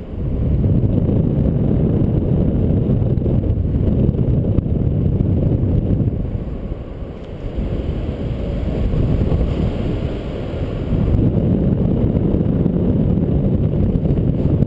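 Wind rushing over a paraglider pilot's camera microphone in flight: a loud, low rumble that swells and eases, with brief lulls about seven and ten seconds in.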